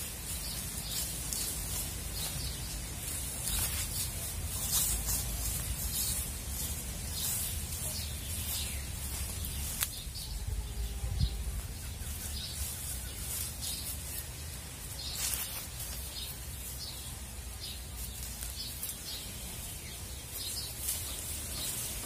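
Hands scraping and rustling in dry soil and leaf litter while planting, a run of short, irregular scratchy strokes over a steady low rumble.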